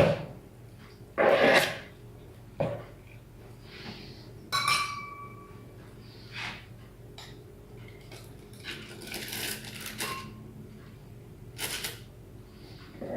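Kitchen dishes and utensils clattering and knocking at irregular intervals, with one short metallic ring about four and a half seconds in.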